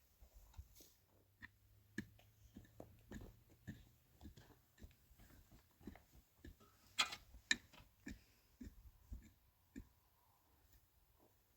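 A scattered series of light, irregular clicks and knocks, like small hard objects being handled, with two sharper ones about seven seconds in.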